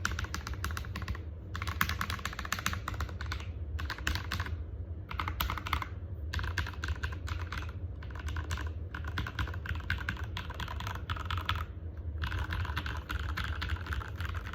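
Fast typing on an Epomaker EP84 hotswap 75% mechanical keyboard fitted with Jwick Black and KTT Rose switches: rapid runs of key clicks broken by several short pauses, over a steady low hum.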